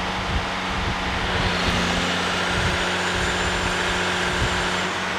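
Hydraulic power unit running steadily: a 500 horsepower John Deere diesel engine driving its double hydraulic pump, run dry with no water pump attached while its pressures are set. A constant hum with a hiss that grows brighter about two seconds in.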